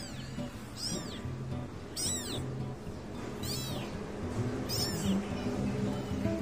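Very young kitten mewing, five short high-pitched cries that each rise and fall, coming about one every second or so. These are the calls of a kitten left alone by its mother.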